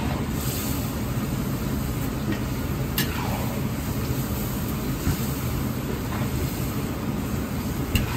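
Steady rushing noise of a gas wok burner under a wok of boiling sauce, with a few sharp clicks of a metal ladle against the wok as the spaghetti is stirred.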